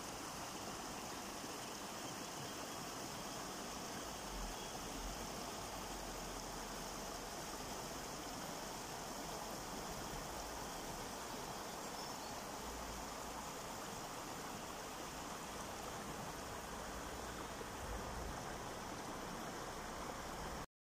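River water rushing steadily, a continuous even wash.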